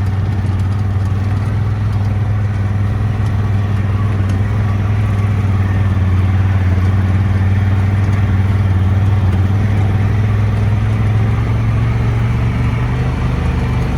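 Dune buggy engine running steadily as the buggy drives along, its pitch rising a little near the end.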